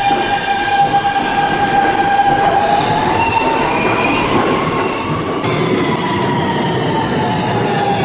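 Subway train pulling away: the electric traction motors whine in several steady tones that glide upward and shift in pitch about halfway through, over the rumble of wheels on rail.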